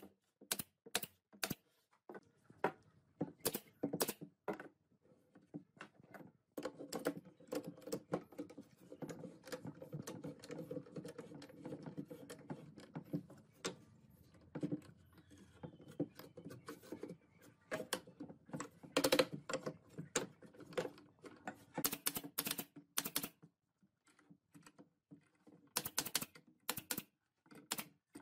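Sharp clicks of a pneumatic brad nailer firing into pine boards, in single shots and quick runs. Between them come knocks and rubbing as the wood pieces are handled and clamped, with a busier stretch of rapid light ticking in the middle.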